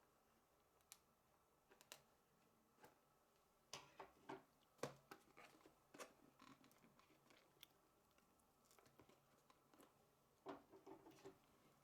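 Faint scattered clicks and crackles of a sealed retail box being worked open by hand, with small clusters of handling noise about four seconds in and again near the end.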